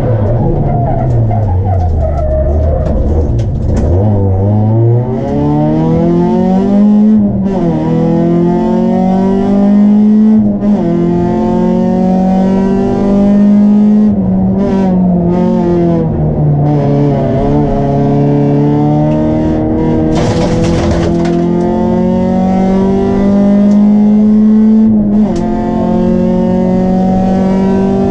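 Opel Astra F GSi rally car's four-cylinder engine under hard driving, heard from inside the cabin. The engine note drops steeply over the first few seconds, then climbs and falls repeatedly as the car accelerates, brakes and changes gear. There is a brief hiss about 20 seconds in.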